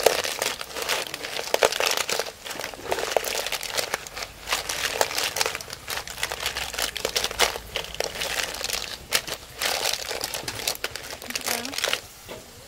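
Snail shells clattering against one another and against the metal pot as a metal ladle stirs and tosses them in thick curry sauce: a dense, continuous run of clicks and scrapes that stops near the end.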